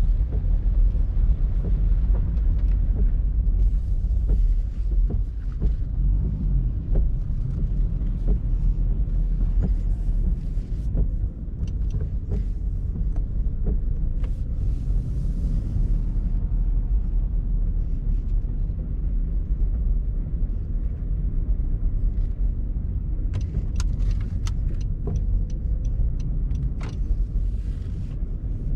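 Honda CR-Z being driven: steady low rumble of road and engine noise, with scattered small clicks and taps.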